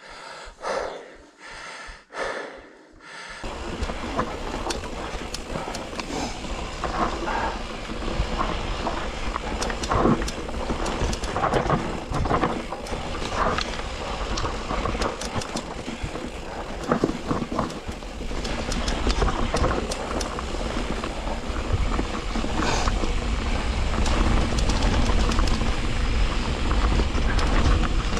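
Riding noise from an electric mountain bike on a rough trail, heard from a chest-mounted camera: a continuous low rumble with scattered rattles and clicks. It starts about three seconds in and grows louder from about halfway through.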